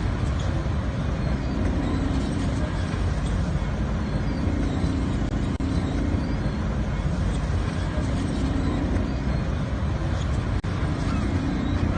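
Carnival ride machinery running with a dense, steady din and a low hum that swells and fades every few seconds as the ride goes round. The sound cuts out for an instant twice, once past the middle and once near the end.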